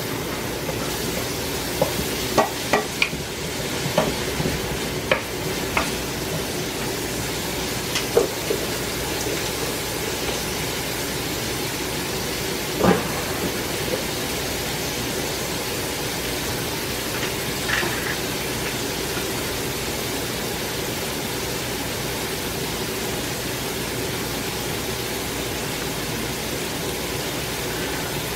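Diced onions and green bell pepper sizzling steadily as they sauté in a pan. A few sharp clicks and knocks against the pan come in the first several seconds, one more near the middle.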